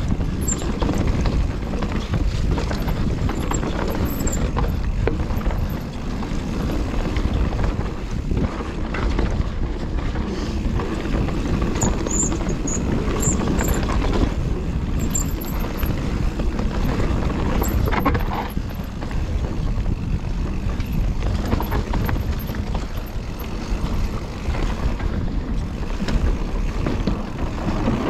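Mountain bike riding fast over a rough dirt trail: tyres rumbling over the ground, the bike rattling and clattering without pause, and wind buffeting the microphone.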